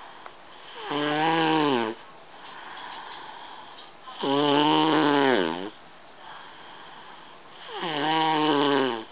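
A four-year-old boy snoring loudly in his sleep: three long, pitched snores about three and a half seconds apart, each dropping in pitch as it ends, with quieter breathing between them.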